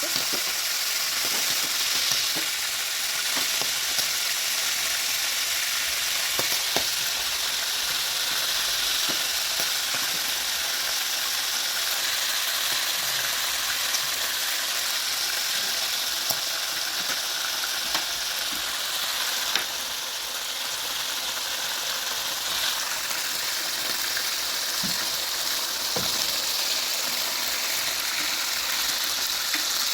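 Pieces of cow liver deep frying in hot cooking oil, a steady loud sizzle with scattered small pops and spits of the oil.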